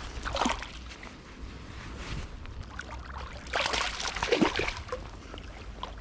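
Water sloshing and splashing in two brief bursts, the second and louder one around four seconds in, over a low steady rumble.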